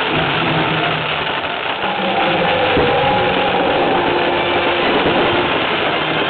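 Fireworks bursting and crackling in a dense, continuous rumble, heard through a small camera microphone, with the show's music faintly underneath.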